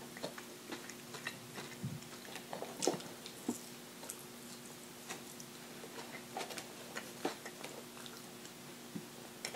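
A person biting and chewing fried fast food: faint, scattered small crunches and wet mouth clicks. A faint steady hum runs underneath.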